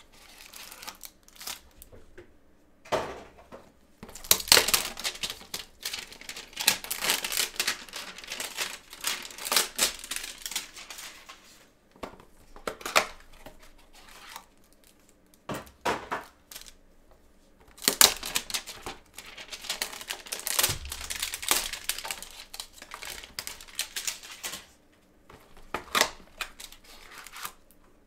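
A cardboard trading-card hanger box being torn open and a cellophane-wrapped pack of cards crinkling as it is handled by gloved hands, in two long spells of crackling with scattered sharp taps and clicks between.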